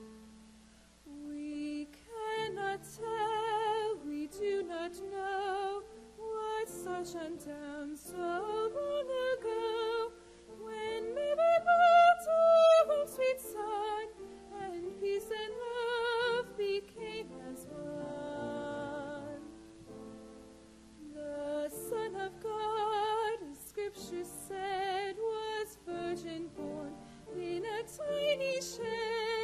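A woman singing a solo with a wide vibrato over a steady instrumental accompaniment, with a short pause in the voice about two-thirds of the way through.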